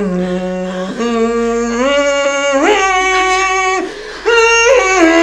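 A voice singing a slow line of long held notes that step upward in pitch, with a short break about four seconds in.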